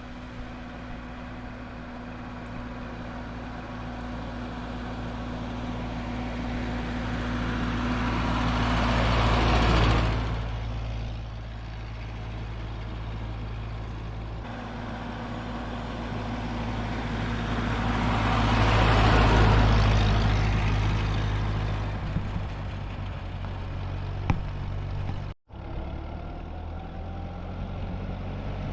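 A Ford 2N tractor's four-cylinder flathead engine running steadily under way. Its sound swells louder and fades twice, with a brief cut-out near the end.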